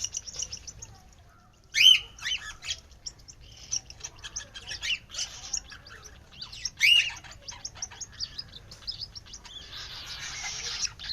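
Tame pet birds chirping and twittering in quick succession, with two louder calls, one about two seconds in and one about seven seconds in.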